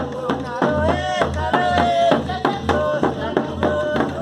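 Brazilian folk song: a voice singing a melody over a steady, driving beat of percussion strikes and low drum pulses.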